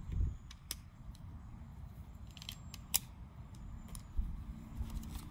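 Small plastic doll accessories and packaging pieces clicking and tapping as they are handled: a few sharp, separate clicks, the loudest about three seconds in.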